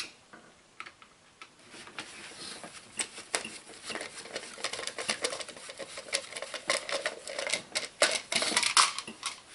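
Gloved hands working at a car engine's distributor and spark plug wires: a run of small clicks, taps and scrapes that grows busier and louder from about three seconds in.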